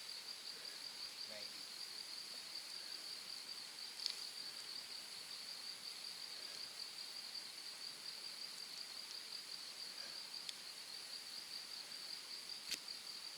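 Night-time insect chorus: a steady, unbroken high trill at one pitch, with a couple of faint clicks.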